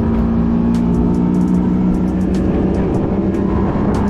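Outboard motor of a bass boat running steadily at speed, its pitch dipping a little mid-way and climbing again near the end.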